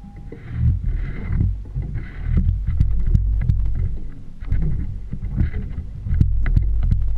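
Small fishing boat under way on open water: the low rumble of the boat and wind on the microphone come in two surges, with splashing and many sharp knocks as the hull meets the chop.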